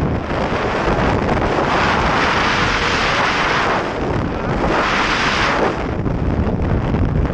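Wind buffeting the microphone of a moving scooter, over the steady noise of the scooter and road underneath. The rushing swells louder twice, from about one and a half seconds in and again around five seconds in.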